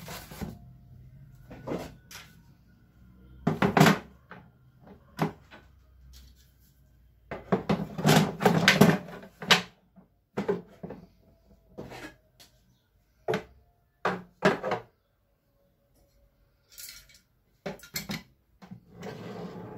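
Things being put into a wooden drawer: a flat cardboard package and a metal fence rail knock, slide and scrape against the drawer's MDF bottom and sides in irregular bumps, the loudest clusters about four and eight seconds in.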